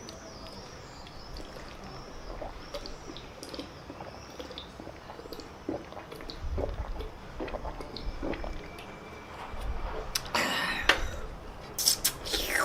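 Crawfish being eaten close to the microphone: scattered wet clicks, smacks and small shell cracks, with louder crackling bursts about ten seconds in and again near the end.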